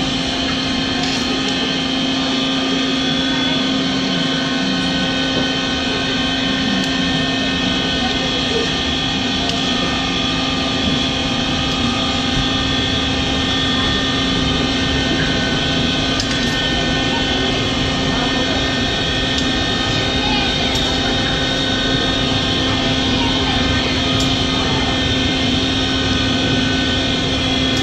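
Rice-flour chekkalu deep-frying in a wide iron kadai of hot oil: a loud, steady sizzle, with a constant low hum underneath.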